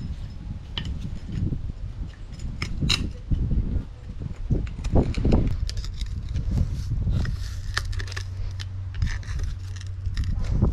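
Irregular metallic clinks, clicks and knocks of hand tools and metal parts being handled, over a low rumbling handling noise.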